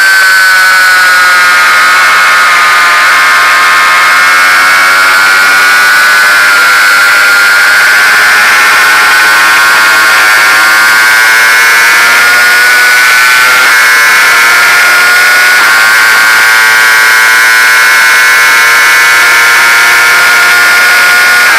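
Motorcycle engine held at high revs under power, a loud steady high-pitched whine that rises and dips only slightly in pitch, with wind rush over an onboard camera microphone.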